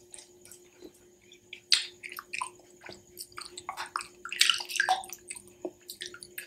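Close-miked wet, crunchy chewing and mouth sounds of eating pani puri, crisp fried shells with spiced water, as a string of irregular clicks and squelches, busiest and loudest about four to five seconds in.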